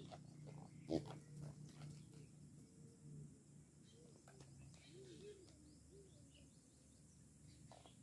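Faint outdoor ambience: a steady low hum with scattered light clicks, one sharper knock about a second in, and a few soft, low arching calls in the middle.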